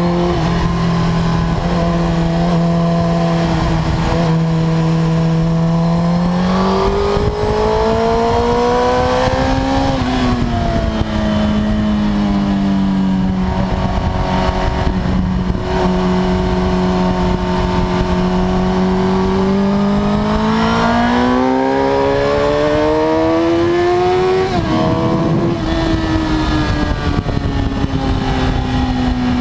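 Suzuki GSX-R1000 K5's inline-four engine heard onboard at speed, its pitch climbing as it pulls, dropping sharply about ten seconds in and again near twenty-five seconds, then falling as the bike slows. Wind rushes over the microphone throughout.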